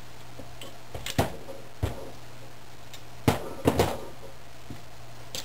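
Knocks and clunks of a metal Rochester carburetor body being handled, turned over and set against the bench, a handful of separate knocks with two louder ones a little past the middle. A steady low hum runs underneath.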